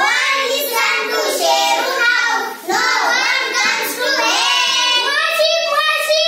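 A small group of young girls singing a song together in chorus.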